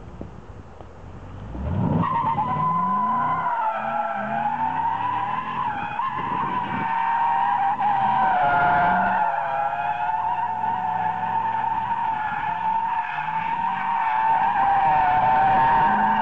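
Chevrolet Camaro SS drifting: from about two seconds in, its rear tyres squeal loudly and steadily with a wavering pitch, over the 6.2-litre V8 revving up repeatedly.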